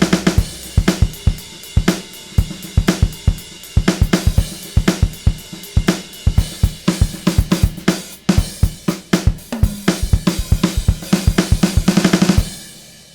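Sampled drum kit from the Groove Agent 5 virtual drum instrument playing a busy pattern of kick, snare, hi-hat and cymbal hits. It stops near the end, leaving a cymbal ringing out and fading.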